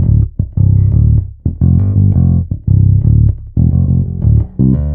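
Electric bass played through a LeSuire Avalanche 300-watt all-tube bass amp: a deep groove of low notes in short phrases, with brief breaks between them.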